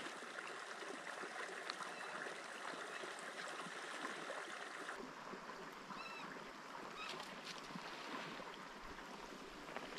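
Steady rushing hiss of a flowing river, its character shifting abruptly about halfway through.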